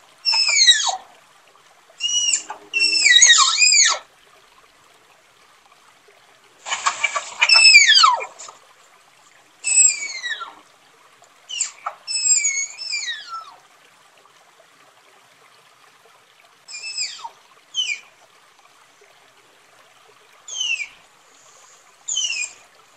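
Tapir calling with repeated shrill, whistling squeals, each falling steeply in pitch, in bouts of one to several calls with pauses of a few seconds between them. The loudest bout, about seven seconds in, is harsher, with a rasping noise under the whistles.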